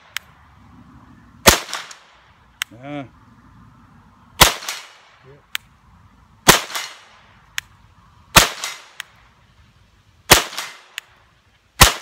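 Six shots from a CZ P-09 pistol fitted with a .22 LR conversion kit, fired about every two seconds at a steel target 50 yards away. Each shot has a short echoing tail, and faint sharp ticks follow several of them.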